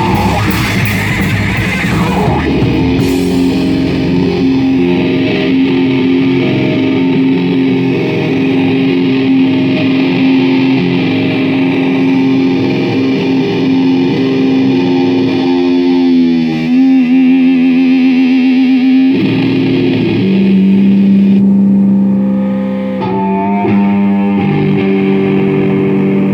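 Live rock band music led by distorted electric guitar holding long sustained notes; about two-thirds through one held note wavers, then a lower note is held to the end.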